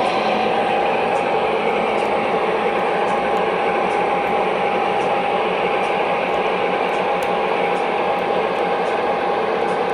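O gauge model diesel locomotives running, a steady mechanical hum with a constant whine and faint light ticking.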